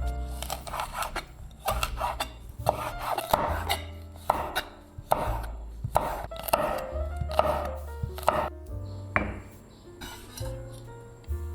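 A knife chopping on a cutting board in repeated uneven strokes, over background music with a steady bass line.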